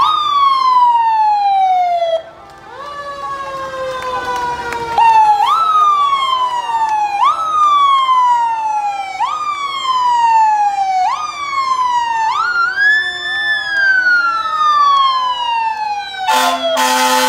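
Sirens of passing fire department vehicles, overlapping: the pitch jumps up and slides slowly down again about every two seconds, with one long smooth rise and fall in the middle. A horn blast of about a second cuts in near the end.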